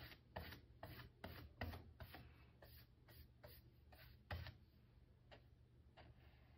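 Faint strokes of a flat paintbrush dragging white paint across a wooden board, about two or three a second, thinning out after about four and a half seconds.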